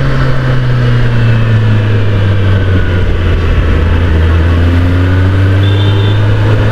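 Kawasaki ZX-10R's inline-four engine running at steady revs while riding, a continuous low hum under a rush of noise.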